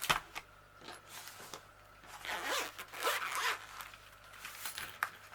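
A plastic packet of bamboo crochet hooks being opened and handled: short zip-like rasps and scattered clicks and rustles of plastic, busiest about two to three seconds in.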